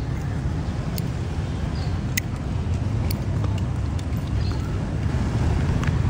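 Steady low rumble of road traffic, with a few sharp metal clicks as a slim Zippo lighter is handled; the clearest, about two seconds in, rings briefly.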